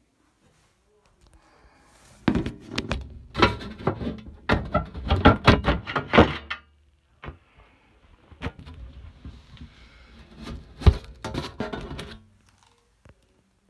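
Handling noise: a run of knocks, clatters and rubbing in two bursts, the first about four seconds long and the second shorter near the end, with one sharp knock the loudest.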